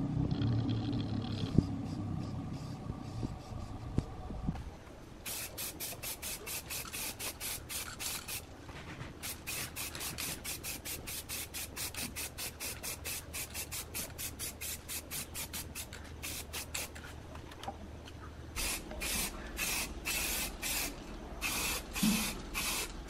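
Aerosol spray paint can hissing in rapid short bursts, about four a second, with a few longer bursts near the end. A low rumble fills the first few seconds.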